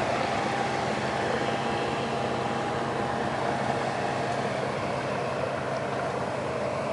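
Steady mechanical drone of machinery running aboard a gulet yacht, with a few held tones over an even hum.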